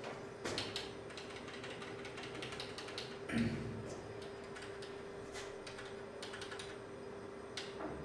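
Scattered light clicking at a computer as a document is scrolled, over a steady hum, with one thump about three and a half seconds in.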